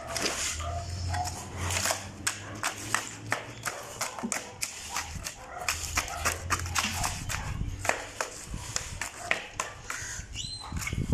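Metal shovels scraping and knocking as a wet soil, cement and trash mix is shovelled and pressed into a wooden block mold: a run of irregular sharp clicks and knocks, several a second.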